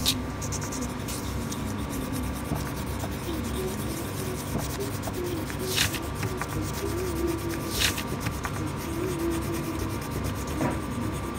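A coloured pencil scratching and rubbing steadily across notebook paper as it shades in colour. Two short sharp clicks come about six and eight seconds in.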